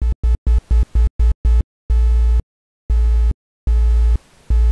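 Software synthesizer played by a person's body movements: a deep bass tone with a buzzy higher tone over it, switching sharply on and off. It starts as short pulses about four a second, then comes in three longer half-second blasts with silent gaps between.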